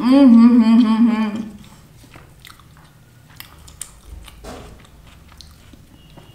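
A woman's drawn-out 'mmm' of enjoyment with a wavering pitch, then quiet chewing with small wet mouth clicks as she eats and tears flaky lachha paratha with her fingers, and a short hum about four and a half seconds in.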